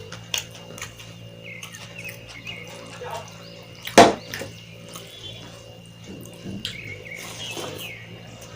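Close-up eating sounds from a mouthful of curry and rice: wet chewing, lip smacks and clicks, with one loud sharp smack about four seconds in, over a faint steady hum.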